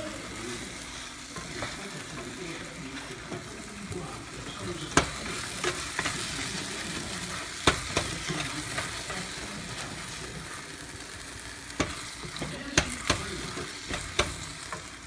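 A thick tomato-and-spice mixture sizzling in a stainless steel pan as it is stirred with a wooden spoon, with a sharp knock of the spoon against the pan every second or two.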